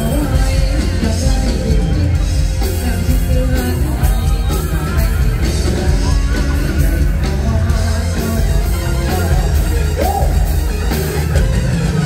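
Live lam sing band music: a loud, steady drum and bass beat with a singer's voice over it.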